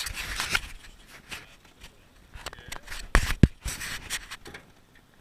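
Handling noise on a GoPro Hero 3 camera: a hand rubbing and scraping against it as it is moved, with two sharp knocks a little past the middle.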